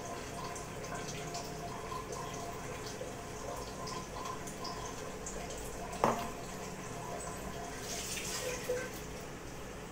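Tamarind water being poured from a steel bowl into a kadai of oil-fried brinjals, with a single sharp knock about six seconds in.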